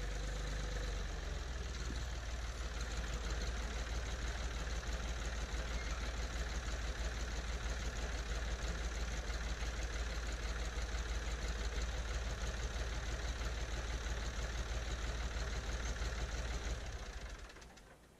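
Tractor engine idling steadily with a fast, even firing pulse, fading out near the end.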